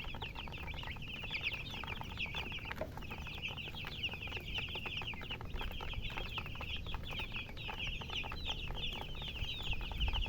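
A brood of baby chicks peeping, many rapid high chirps that each fall in pitch and overlap into a continuous chorus, with a brief lull about three seconds in.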